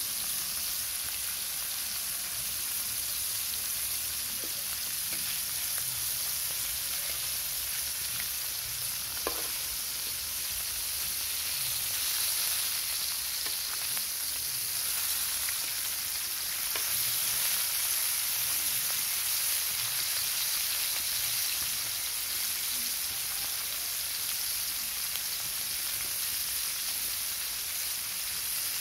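Spice-coated catfish pieces sizzling steadily as they shallow-fry in hot oil in a wide pan, with a few light clicks and scrapes of a spatula turning the pieces.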